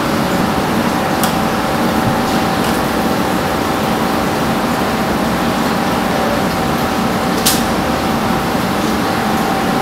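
Steady rushing noise of commercial kitchen machinery, with a thin steady tone running through nearly all of it. A single sharp clink comes about seven and a half seconds in.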